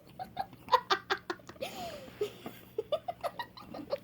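A child giggling quietly in short, quick bursts, most of them about a second in.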